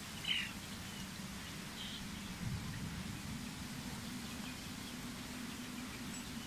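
Steady wind blowing through coconut palm fronds ahead of a rainstorm, with a short bird chirp just after the start and a fainter one about two seconds in.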